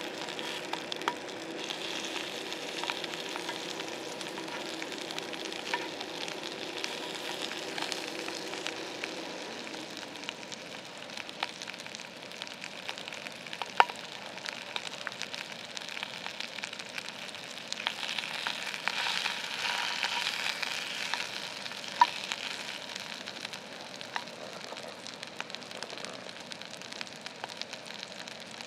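Beef sizzling and spitting in a cast-iron pan, a steady crackling hiss that grows louder for a few seconds past the middle, with two sharp pops of fat.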